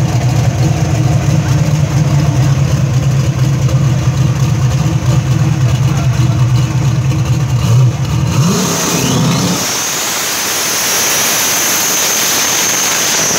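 Chevrolet S-10 drag truck's engine idling with a steady low drone, then revving up about eight seconds in and breaking into a burnout: the spinning rear tyres give a loud hissing squeal that holds one high pitch.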